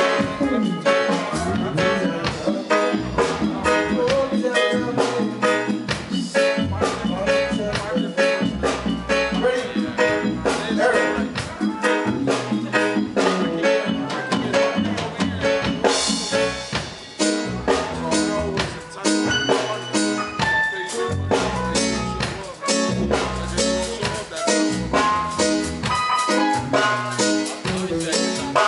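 Live roots reggae band music: drums, bass and guitar playing a steady, even beat, with a pulsing bass line.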